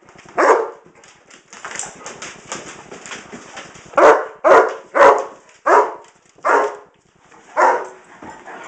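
A dog barking: a single bark near the start, then a run of six barks from about four seconds in, each one short and loud.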